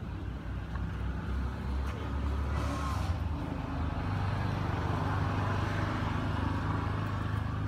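A motor vehicle's engine running, a steady low drone that grows louder about halfway through.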